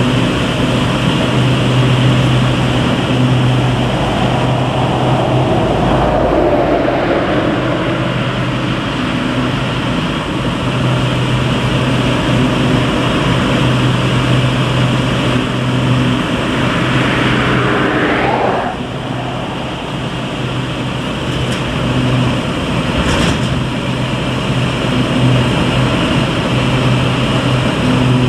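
Peat loading plant running, conveyor belts and machinery giving a steady mechanical hum. About two-thirds of the way through a rising whine builds and then cuts off suddenly.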